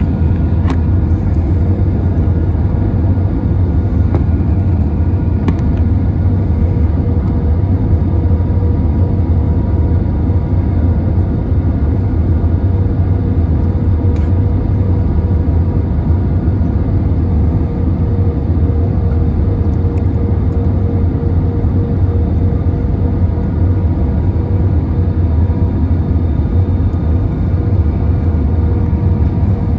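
Airbus A320 cabin noise: a steady, loud low rumble of the engines and airflow, with a faint steady whine above it.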